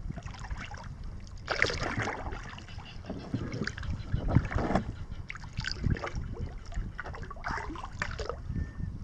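Kayak paddle strokes dipping and splashing in calm creek water, about one stroke every second and a half, over a low rumble of wind on the microphone.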